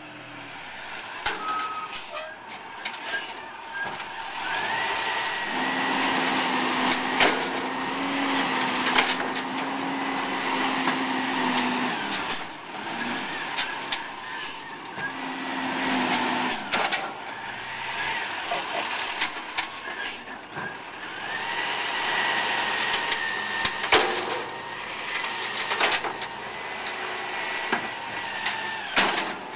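2005 Peterbilt 320 garbage truck with an Amrep automated side-loader body. Its engine runs and twice rises to a higher, held whine for several seconds. Air-brake hisses and sharp clanks and bangs come throughout.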